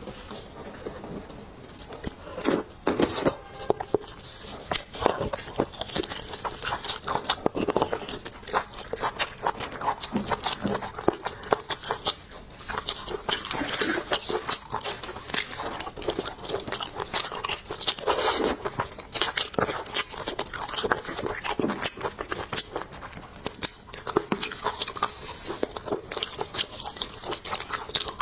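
Close-miked eating of beef marrow bones: steady wet chewing of the meat and marrow, a dense run of short clicks and smacks.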